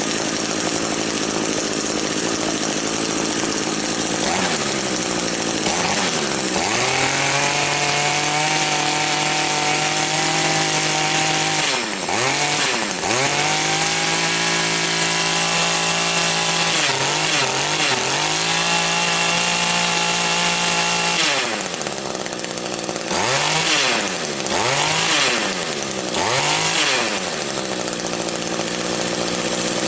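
Echo two-stroke string trimmer engine revving: throttled up to high speed and held there for several seconds at a time, dropping back and climbing again in between, then blipped up and down quickly a few times near the end. It now revs freely, its spark arrestor screen, which had been completely blocked with carbon, freshly cleaned.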